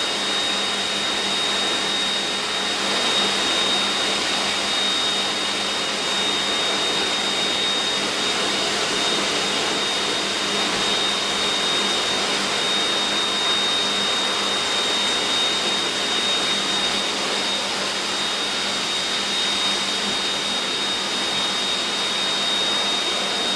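Forced-air dog dryer blowing steadily through its hose and nozzle, drying a German Shepherd puppy's coat: a continuous rush of air with a thin, steady high whine over it.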